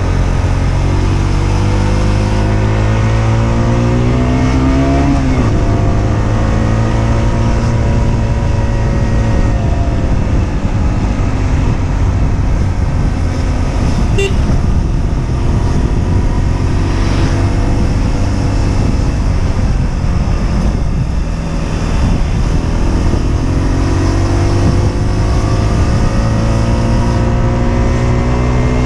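Husqvarna Svartpilen 125's single-cylinder engine, heard onboard, revving up steadily and dropping sharply about five seconds in. It runs on at lower revs with road noise through the middle, then climbs in revs again near the end.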